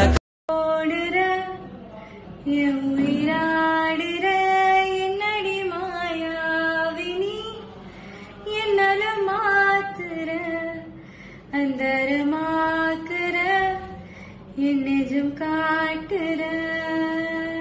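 A woman singing a slow melody in phrases a few seconds long, with held, wavering notes and short pauses between phrases. Just before she begins, louder music cuts off abruptly with a half-second gap.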